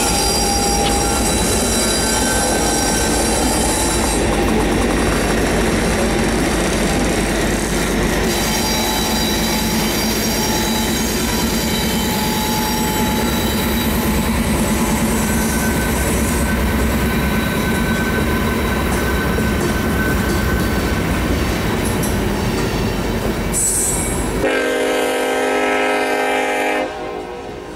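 Loaded coal train passing close by: the lead diesel locomotives go by first, then coal hopper cars roll past with steady wheel-on-rail noise and thin wheel squeals. Near the end the low rumble suddenly drops away and a sustained multi-tone sound is heard for about two seconds.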